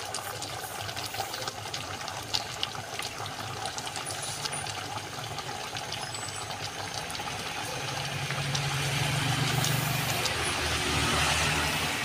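Pork-rib curry simmering in an aluminium pot on a gas stove: a steady bubbling hiss with scattered small pops. A low droning hum grows louder over the last four seconds or so.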